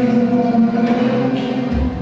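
Music playing, with held notes; plucked-string music is heard just before and after.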